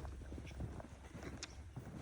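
Faint footsteps in snow, a few scattered crunches over a low steady rumble.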